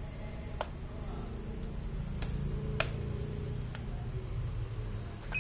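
Sharp plastic clicks of the switches and buttons on a handheld RC bait-boat transmitter being pressed, four in all over a few seconds, the third the loudest, over a low steady hum.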